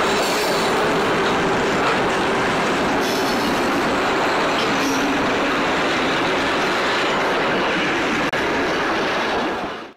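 Vintage Alco diesel locomotive 844 and two steel passenger carriages passing close by, the engine giving way to the rumble of carriage wheels on the rails. The sound holds steady, then drops away sharply near the end.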